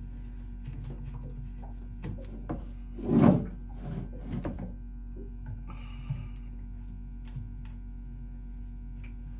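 Hands working the hoses and fittings at the base of a boat water heater: scattered clicks and rubbing, with a louder knock and scrape about three seconds in, over a steady low hum.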